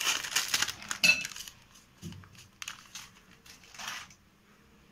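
Steel spoon clinking and scraping against a glass mixing bowl for about a second and a half, then a few lighter taps and rustles that stop about four seconds in.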